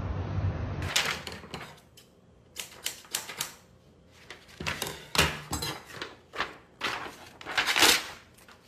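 Scissors snipping paper in a run of irregular sharp snips, the loudest cluster near the end. A low rumble fills the first second before the snipping starts.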